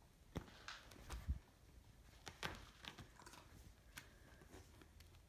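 Near silence with faint, scattered taps, ticks and rustles as a cat bats at and bites a feather wand toy on a rug. The loudest is a soft thump about a second in.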